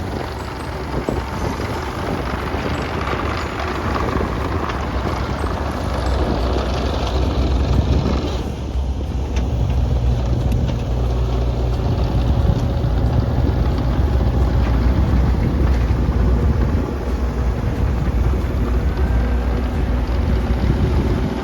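Mini excavator's diesel engine running steadily while working crushed stone, growing louder about halfway through.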